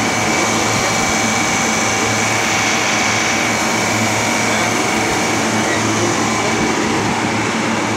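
Refrigeration condensing unit running: a Bitzer semi-hermetic reciprocating compressor and its condenser fan, a steady hum and rushing noise with a faint high whine.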